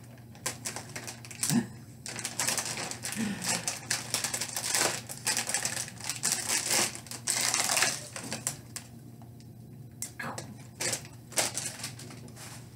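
Clear plastic bag crinkling as the plastic model-kit runners inside rattle and clack against each other while it is handled and shaken. Dense clicking and crinkling for several seconds, then a short lull and a few more clicks.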